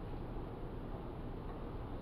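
Steady background room noise: an even low hiss and rumble with no distinct events.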